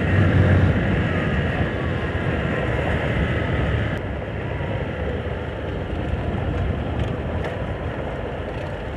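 Motorcycle riding along a dirt road: a steady mix of engine and wind rush on the microphone, with the tyres running over loose dirt.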